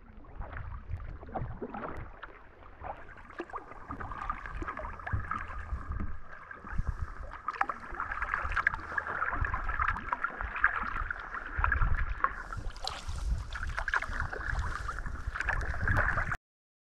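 Kayak paddle strokes in choppy sea water: blades dipping and splashing over and over, with water washing along the hull and wind rumbling on the microphone at times. The sound cuts off suddenly near the end.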